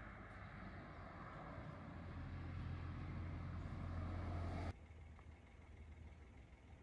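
A motor vehicle's engine running, a steady low hum that grows gradually louder and then stops abruptly about two-thirds of the way through. After it, only faint outdoor background sound remains.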